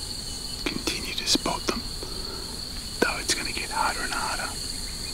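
A steady high-pitched drone of insects, with a man whispering now and then and a few faint clicks.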